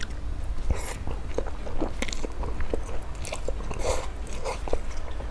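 A person eating spicy instant noodles close to the microphone: irregular wet slurps, smacks and chewing, with several louder hissy slurps between about one and four seconds in.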